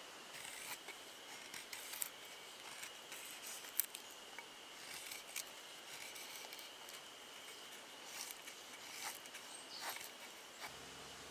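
A knife shaving thin curls off a split wooden stick, carving a feather stick: a run of irregular short scraping strokes that stops near the end.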